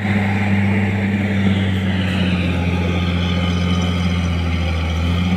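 Heavy diesel engines running steadily: a constant low hum that holds one pitch throughout.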